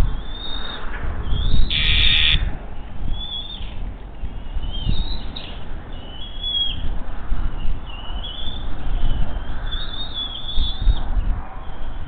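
Bald eaglets giving high-pitched, repeated food-begging calls while the adult at the nest holds prey, with one louder, harsher call about two seconds in.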